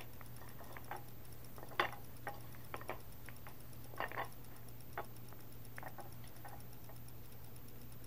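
Scattered light clicks and taps as eggs are moved around in a frying pan, a dozen or so irregular knocks over a steady low hum.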